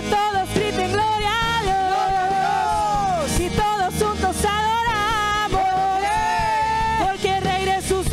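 Live church praise music: a woman sings the lead melody, holding and bending long notes, over a band of drums, electric guitar and keyboard.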